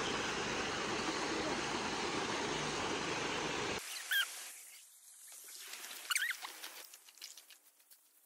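Steady rushing of running water for about four seconds, cut off suddenly, then a quiet stretch with a few short, high, squeaky chirps from birds in the aviary, one about four seconds in and another about six seconds in.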